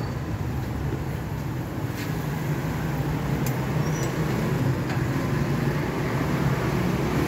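A steady low mechanical hum from an engine or motor running, over street traffic noise, growing slightly louder toward the end.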